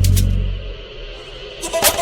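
Electronic background music with a percussive beat; the beat drops out for about a second mid-way, leaving a quieter sustained tone, and comes back near the end.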